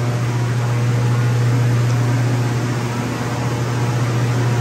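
Walk-in freezer's cooling fans running: a steady rushing noise over a strong, constant low hum.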